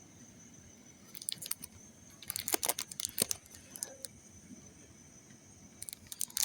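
Dry vegetation crackling and crunching in short bursts of crisp clicks, about a second in, again for a second or so from about two seconds, and near the end.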